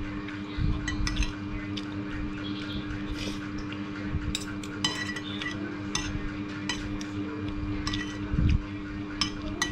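Metal spoon and fork clinking and scraping on a plate at irregular moments, with wet chewing sounds close to the microphone. A steady low hum runs underneath.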